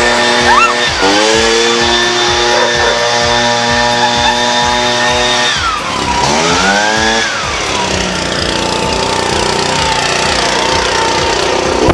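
Backpack leaf blower engine running at high throttle, then dropping in speed about six seconds in, revving up briefly and settling to a lower, steady speed.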